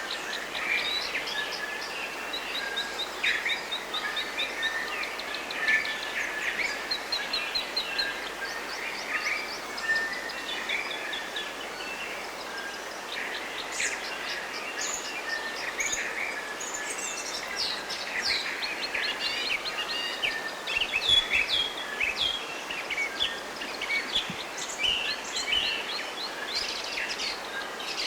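A chorus of forest birds singing and calling, several at once, with quick runs of repeated chirping notes, over a steady background hiss.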